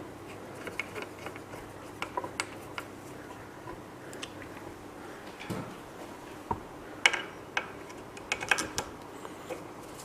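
Irregular small clicks and taps of a screwdriver and metal parts as a bolt on a 3D printer frame is tightened, with a cluster of quick clicks late on.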